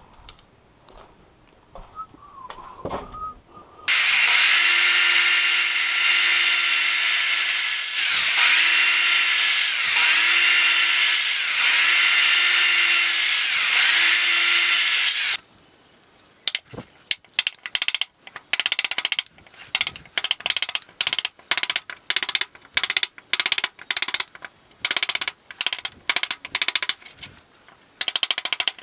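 Circular saw cutting a notch into a pine board. The motor starts about four seconds in and runs at a steady high pitch for about eleven seconds, bogging down briefly and recovering several times as the blade bites into the wood. After it stops comes a long, irregular string of short, sharp bursts of tool work on the board.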